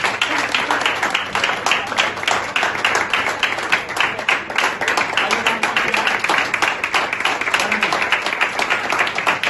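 A room of people clapping and applauding without a break, many sharp hand claps close together.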